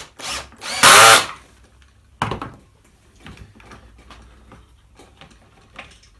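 Cordless drill driving a Kreg pocket-hole screw into the plywood joint: a short blip, then a louder burst of about half a second as the screw is run home. A sharp knock follows about two seconds in, then only small faint clicks.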